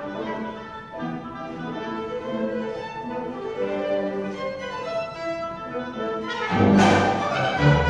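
University symphony orchestra playing, violins and strings carrying held notes; about six and a half seconds in the music swells suddenly louder.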